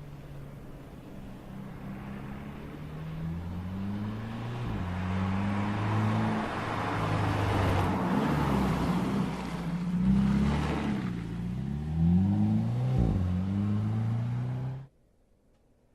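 Mercedes-Benz SLC 300's 2.0-litre turbocharged four-cylinder engine accelerating, its pitch climbing, dropping back at each upshift and climbing again several times, then cutting off suddenly near the end.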